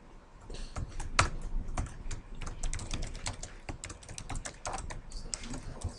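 Typing on a computer keyboard: a run of quick, irregular key clicks, starting about half a second in.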